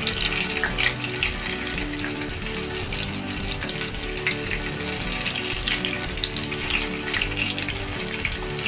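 Hot oil sizzling and crackling steadily around ring-shaped potato and onion dough frying in a pan. Background music plays underneath.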